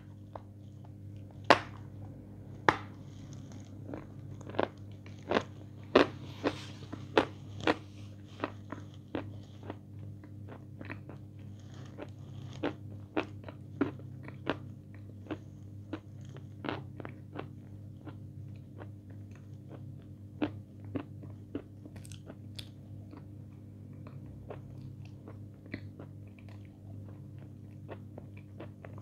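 Close-up crunching bites and chewing of a hard white block coated in chocolate paste, with sharp crunches packed closely in the first ten seconds and then growing sparser. A steady low hum runs underneath.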